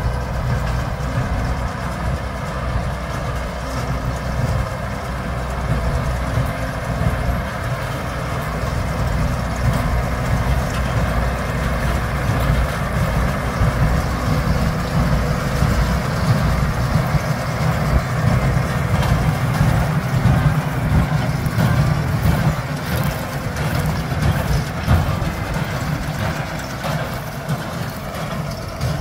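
A heavy diesel engine running steadily, with a low rumble and mechanical clatter and no clear change in speed.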